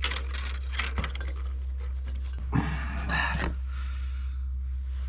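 Light metallic clicks and scrapes from a Vespa PX200 clutch pack being pressed down by hand and its locking ring worked into the clutch basket. A short, louder rushing noise comes about halfway through.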